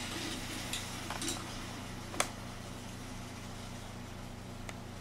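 A few faint, short metallic clicks as a hand works a chrome angle stop valve and its braided supply-hose fitting, the sharpest about two seconds in, over a steady low hum.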